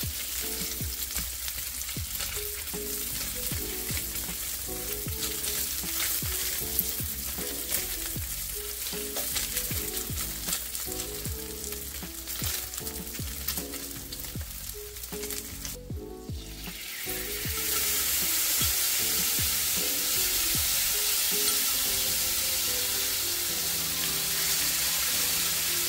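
Spam slices pan-frying in hot olive oil: a steady sizzle with small crackles. After a short break about two-thirds of the way in, the sizzle comes back louder and more hissing, as the sweet soy sauce, mirin and sugar seasoning goes into the pan.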